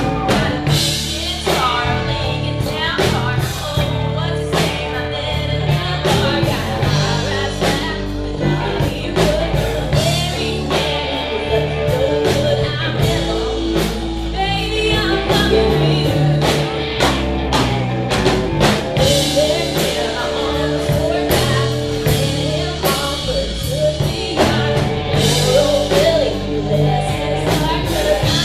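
Live rock band playing with a woman singing lead through a PA system: electric guitars, bass and drum kit keeping a steady beat under her voice.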